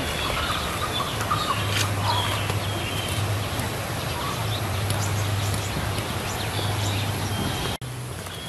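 Birds chirping and chickens clucking, over a steady low hum.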